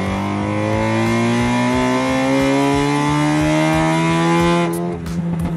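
A manual-transmission car's engine, heard from inside the cabin, revving up steadily as the car accelerates in gear. The revs drop off suddenly near the end, as when the clutch goes in.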